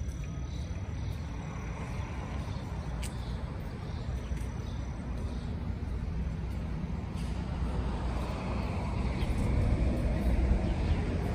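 Street traffic: a low, steady engine rumble from a nearby vehicle, growing louder toward the end.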